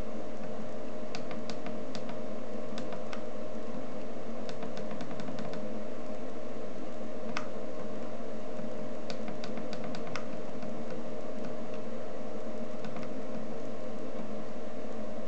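Steady electrical hum with one constant tone, with light clicks scattered through it in small clusters, like keys or buttons being pressed.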